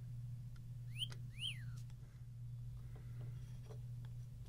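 Two short, high, squeaky chirps about a second in, each rising then falling in pitch, over a steady low hum.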